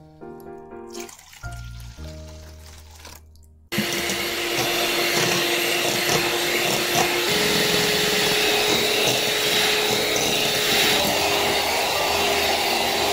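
Piano background music, then about four seconds in an electric hand mixer starts up, its beaters whipping dog shampoo and water into lather in a stainless steel bowl. The motor runs with a steady whir, and its hum steps up in pitch about three seconds after it starts.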